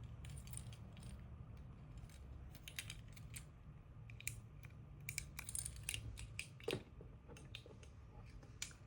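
Small plastic Tobot keycap figures being handled, with scattered light clicks and taps, a sharper click a little before the end, over a faint steady hum.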